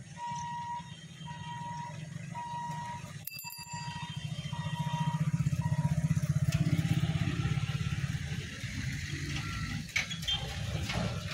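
Level-crossing lifting barrier's warning buzzer sounding in a steady series of short high beeps as the booms rise, stopping about six seconds in. Under and after it, the engines of motorcycles and a car run as road traffic moves across the crossing.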